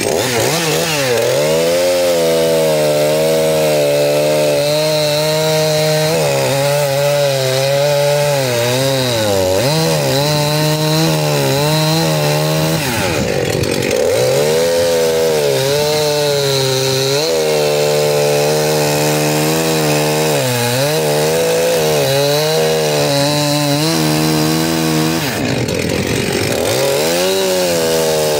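Two-stroke chainsaw running at full throttle and cutting through a log. The engine's pitch wavers as the chain bites, and twice sags deeply and recovers, about halfway through and near the end.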